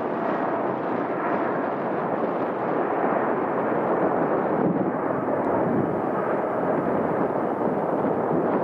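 Boeing 787-9 airliner's two General Electric GEnx turbofans at takeoff thrust: a steady jet rumble through the takeoff roll and lift-off, growing a little louder about three seconds in.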